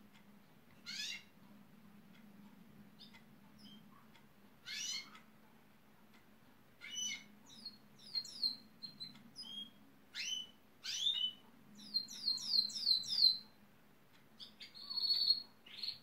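Gloster canary singing in short, separate phrases: a single chirp about a second in and another about five seconds in, then busier notes, a fast run of repeated falling notes near the end, and one held note just before the end.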